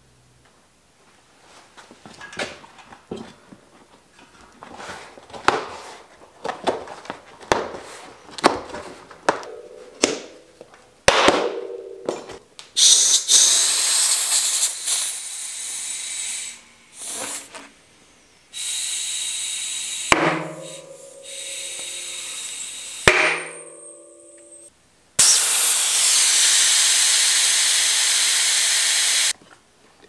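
A mountain-bike tire is handled and worked onto a 29-inch rim with scattered clicks and knocks. Then come long, loud hisses of compressed air from a tank inflator clamped on the valve, stopping and starting, with two sharp pops between them.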